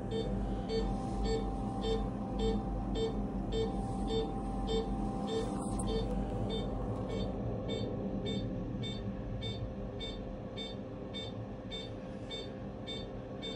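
Hospital bedside equipment beeping: short electronic pips about two a second, a lower beep fading out about six seconds in while a higher one carries on, over a steady low hum.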